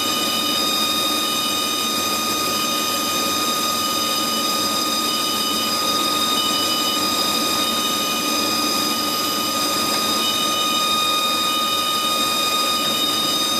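HAAS TL-3 CNC lathe spindle turning a small aluminium part at speed: a steady electric whine made of several high pitched tones, over a low running hum. Short high tone pulses come and go, roughly once every second or so.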